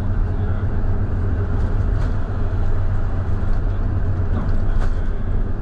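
Scania K320IB coach's diesel engine running steadily on the move, a continuous low drone with a few light ticks or rattles over it.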